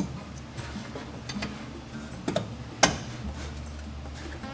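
A few light metallic clicks and taps as the brake master cylinder's cover is set back on and its wire spring clip is worked into place. The sharpest click comes near three seconds in.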